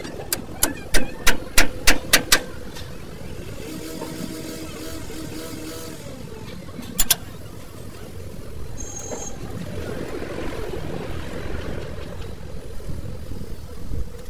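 Metal-on-metal work at a truck's leaf-spring shackle: a quick run of about eight sharp knocks in the first two seconds, then a double knock a few seconds later, over a steady low rumble.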